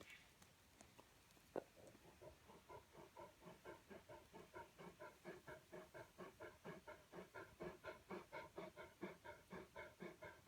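Great Pyrenees dog panting heavily: quick, even breaths about four a second, starting about two seconds in. A single sharp click comes just before the panting begins.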